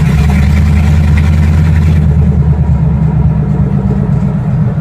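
1955 Chevy panel truck's engine running through open headers, heard from inside the cab while driving. The exhaust has a heavier, deeper note for the first two to three seconds that then eases off.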